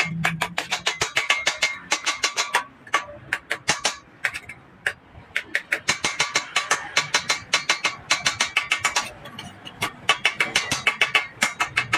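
Small hammer tapping rapidly on a brass radiator filler-neck pipe, about seven ringing metallic strikes a second, in runs with a few short pauses.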